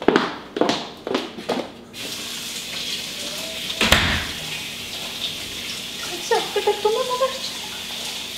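Kitchen faucet running into the sink, a steady hiss that starts about two seconds in, with one loud knock about halfway through. Before the water comes on there are a few sharp knocks and clatters.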